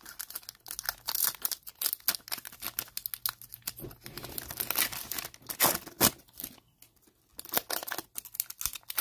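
Foil wrapper of an NBA Hoops trading card pack being torn open and crinkled by hand: irregular crackling rips, with a brief lull about two-thirds of the way through.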